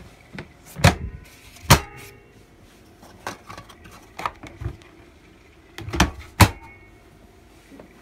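Lid and latch of a Blizzard Box portable 12-volt compressor fridge being shut and worked by hand: sharp clunks and clicks, two loud ones about a second in and two more around six seconds in, with a few lighter clicks between.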